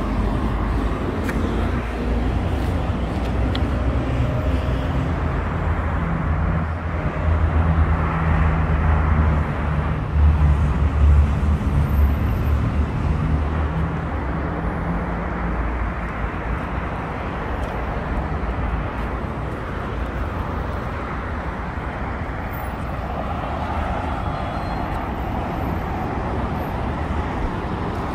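Street traffic: passing cars and the tyre noise of the road. A vehicle engine's low sound swells and passes, loudest about ten seconds in.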